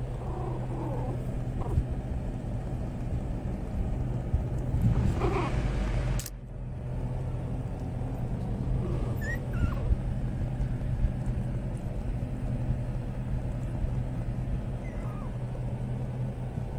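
American Eskimo puppies giving scattered short, high whimpers and squeaks over a steady low hum.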